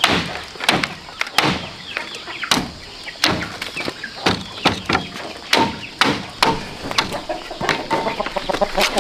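Repeated sharp knocks on bamboo, irregular, about one or two a second, as slats are struck and fitted onto a bamboo fence. Chickens cluck in the background, more toward the end.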